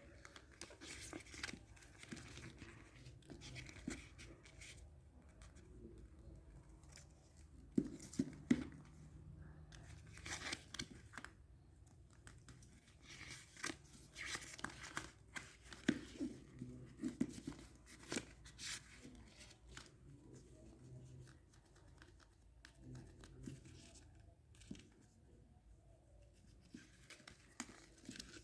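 Packaging being torn open and crinkled by hand while unboxing, in irregular bursts of crackling with a few sharp clicks.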